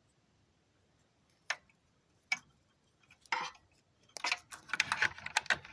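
Small plastic clicks of PC cable connectors being handled and plugged in: three separate clicks about a second apart, then a quick run of clicking and rattling near the end.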